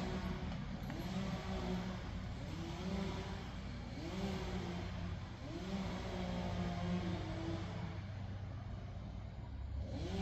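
An engine revving up and easing back in a regular rhythm, about once every second and a bit, over a steady low running drone.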